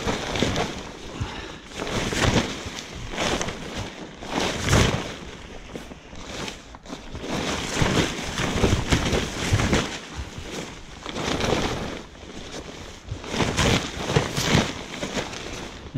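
Fabric of a wing-foil wing's leading edge rustling and flapping as it is shaken by hand in repeated strokes, about one a second, to settle the inflatable bladder centrally inside it.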